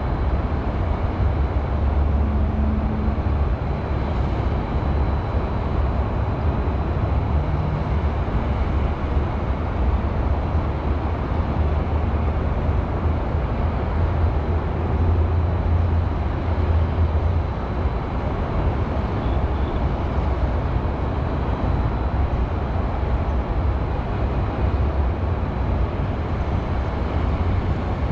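Steady, continuous hum of distant highway traffic in a city, a low rumble with a broad hiss over it and no distinct events.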